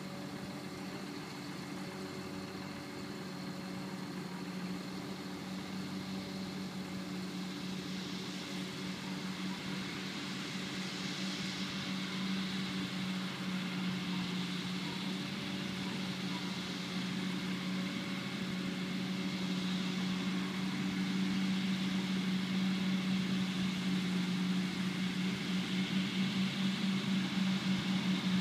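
A farm tractor's diesel engine idles steadily, while the sound of a forage harvester and a second tractor cutting whole-crop silage grows gradually louder as they come nearer. Near the end the engine sound takes on a quick throb.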